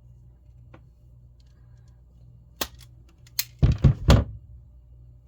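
Cable being cut and stripped back by hand: sharp clicks about two and a half seconds in, then three heavy thunks in quick succession.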